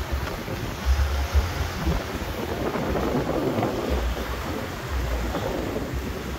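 Wind gusting across a phone microphone in low rumbling buffets, over a steady wash of gentle surf breaking on a sandy shore.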